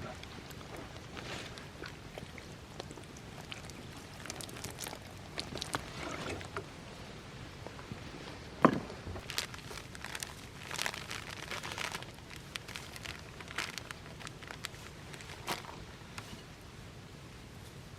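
Campfire crackling: irregular sharp pops and ticks over a low steady hiss, with one louder, sharper pop about nine seconds in.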